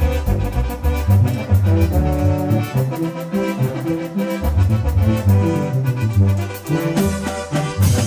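Live Mexican regional band playing an instrumental passage with no singing: keyboards carry the melody over a steady drum beat and a heavy bass line.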